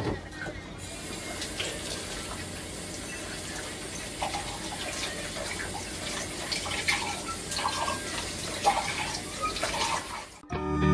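Kitchen tap running steadily into a sink during washing up, with scattered light clinks and knocks of dishes, and a sharp knock right at the start. The running water cuts off suddenly near the end.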